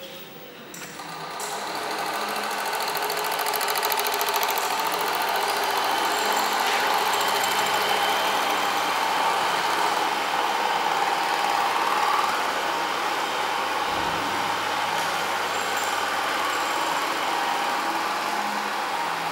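Super 8 film projector running: a steady, rapid mechanical clatter and whir. It grows louder over the first few seconds and then holds steady.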